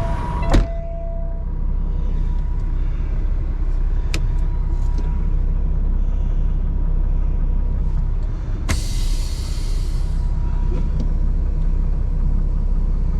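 Semi truck's diesel engine idling steadily in a 2018 Freightliner, with a sharp click about half a second in. A little past halfway comes a burst of compressed-air hiss lasting about a second and a half, from the air brakes being set or released.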